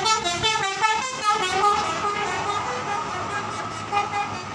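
A bus's 'telolet basuri' multi-tone musical air horn playing a melody. It starts with a quick run of short stepped notes, then moves to longer, steadier notes with a few short ones near the end.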